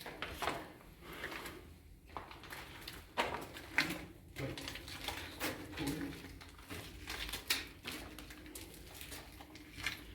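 Irregular clicks, knocks and scuffs, with a few short low sounds mixed in.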